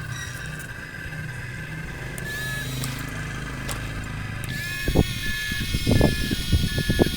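A toy remote-control excavator's small geared motor whirring steadily. About four and a half seconds in, a repeating electronic beep tune starts over it, with a run of sharp plastic knocks.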